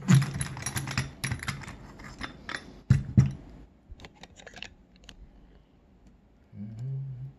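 Rapid metal clicks and rattles as a small pin tumbler lock cylinder is worked loose from a bench vise and handled. Two louder knocks stand out, one right at the start and one about three seconds in, and the clicking thins out in the second half.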